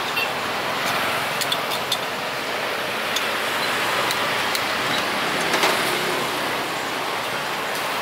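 Busy street-market ambience: a steady wash of traffic and general noise, with a few short clicks and clinks scattered through it.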